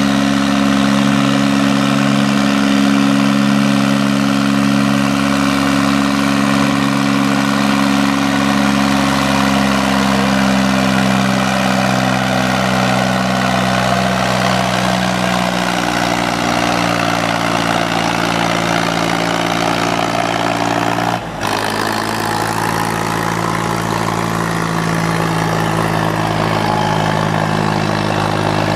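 Diesel engine of a Fendt compact tractor running hard under load while pulling a weight-transfer sled. Its steady note sinks slowly, with a brief break about two-thirds of the way through.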